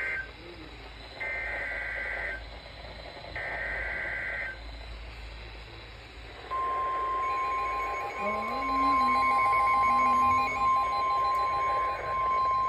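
NOAA Weather Radio SAME data header: the end of one burst, then two more buzzy digital bursts of about a second each, evenly spaced, encoding the flash flood warning. About six and a half seconds in, the steady 1050 Hz warning alarm tone starts and holds, the attention signal that announces a warning.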